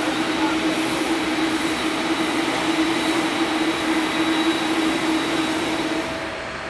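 Jet engines of a taxiing Boeing 787 airliner: a steady rushing hiss with a low hum and a faint high whine. The sound drops off suddenly about six seconds in.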